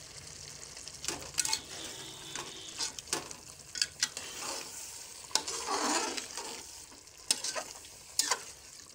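Steel ladle stirring and scraping a thick mutton masala in a metal pot, knocking against the pot's sides and bottom a dozen or so times, over a steady sizzle of the masala frying in oil as it is browned (bhuna).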